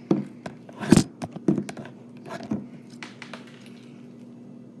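Slime being kneaded and stretched by hand, making a series of sticky clicks and pops, the loudest about a second in; after about three seconds they stop and only a faint steady hum remains.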